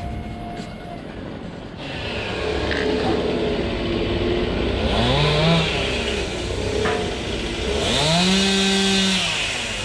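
Chainsaw running, its engine revved up twice: once briefly about halfway through and once longer near the end, the pitch rising, holding and dropping back each time.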